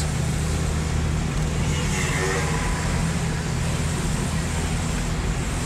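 Car engine and tyre noise heard from inside the cabin while driving at a steady speed: a steady low hum under an even road rush.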